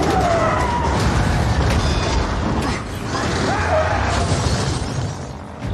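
Action-film car crash sound effects: heavy impacts and shattering glass with gliding squeals, in two loud surges with a brief dip about three seconds in, mixed with music.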